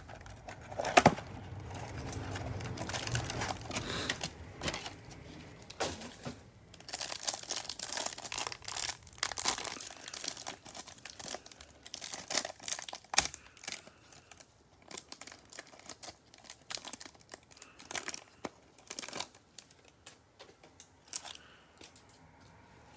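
A cardboard trading-card hanger box being opened, then the clear plastic wrapper crinkled and torn off a stack of cards. The crinkling is thickest in the middle, then thins to scattered crinkles and clicks near the end.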